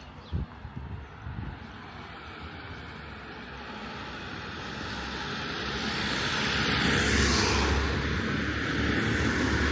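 A vehicle's engine noise building slowly and then holding steady, a low rumble with hiss above it, as it draws near.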